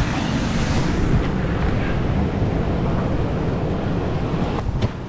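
Wind buffeting the microphone over the steady wash of surf breaking on the beach, with a couple of sharp clicks near the end.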